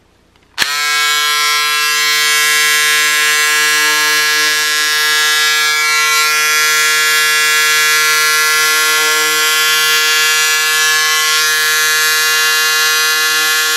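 Pink Power electric cordless scissors' motor running with a steady buzz as the blades cut through four layers of waterproof polyvinyl fabric. It switches on about half a second in and runs without a break.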